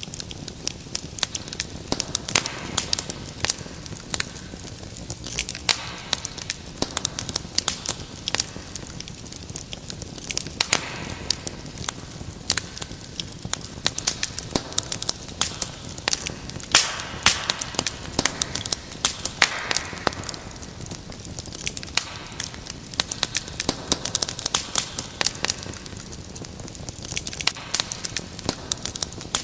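Wood fire burning in a fireplace, with a steady hiss and dense, irregular crackles and pops, several a second.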